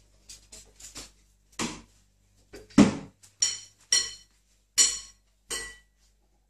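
A series of about six sharp knocks and clinks with a short metallic ring, the heaviest about three seconds in: a ball knocking about on a tiled floor and against metal chair legs as a cat bats it around.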